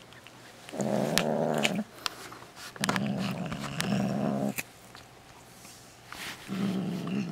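British Shorthair cat growling over a piece of jerky, three long low growls with short pauses between them.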